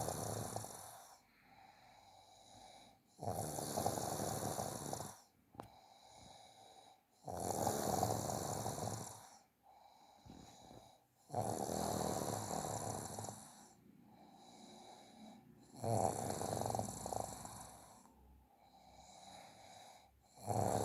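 A person snoring steadily: a loud snore of about two seconds comes roughly every four seconds, with quieter breathing between the snores.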